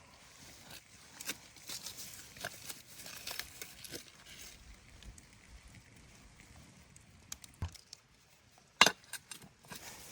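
Scattered light knocks, clicks and rustling, with one sharp, loud knock about nine seconds in.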